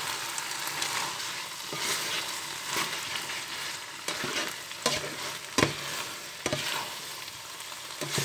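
Fried noodles sizzling in a frying pan while being stir-fried and tossed with a utensil. There are a few sharp knocks of the utensil against the pan, the loudest about five seconds in.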